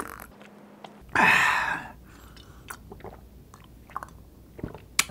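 Close-miked mouth sounds of someone drinking from a glass: a loud gulp about a second in, then small wet clicks of swallowing.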